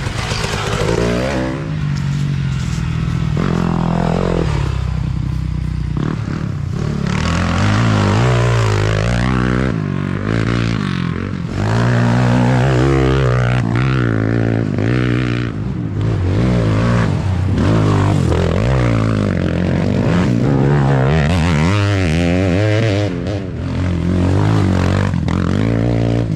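Off-road engines of race quads and a dirt bike revving up and down over and over through throttle changes as they ride the dirt trail, the pitch rising and falling every second or two.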